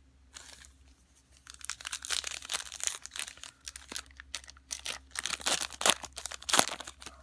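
A foil trading-card pack wrapper being crinkled and torn open by hand: a run of quick crackles and rips, busiest from about a second and a half in and loudest near the end.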